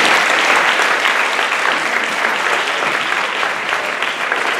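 Audience applauding: steady, dense clapping that eases off a little toward the end.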